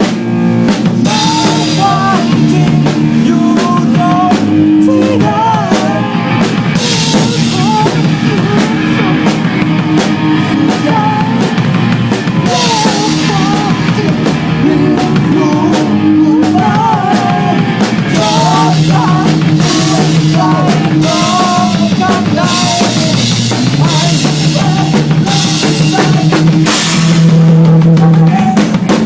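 Rock band playing live: a full drum kit with bass drum and cymbals, sustained bass and guitar notes, and a wavering melody line on top.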